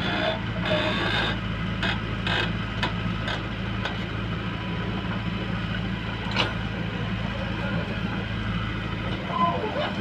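JCB 3DX backhoe loader's diesel engine running steadily under load while the backhoe digs and lifts a bucket of soil, with several metallic clanks of the bucket and boom in the first few seconds and another about six seconds in.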